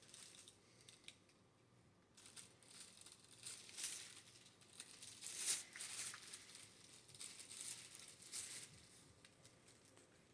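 Faint crinkling and rustling in irregular bursts as puppies scrabble and play, starting about two seconds in and dying away near the end.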